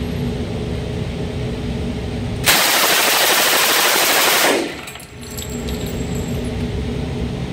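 Thompson M1A1 .45 ACP submachine gun firing one full-auto burst of about two seconds, starting about two and a half seconds in, the shots running together into one continuous blast that then stops abruptly.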